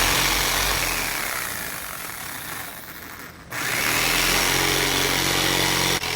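Corded Skil circular saw cutting plywood: its motor whine falls away over the first three seconds, then the saw is triggered again about three and a half seconds in, spins up and runs steadily.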